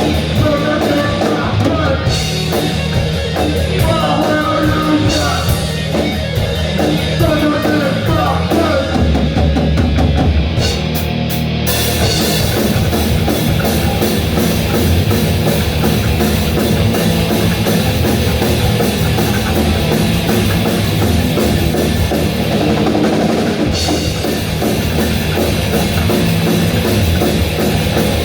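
A rock band playing live and loud, with a drum kit and guitars. The sound thickens into a dense, full-band passage about twelve seconds in.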